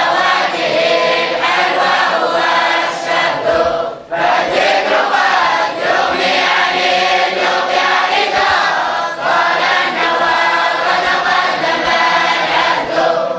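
Many voices of boys and men chanting together in unison: a group recitation by the students of a traditional Quranic school, with a brief breath pause about four seconds in.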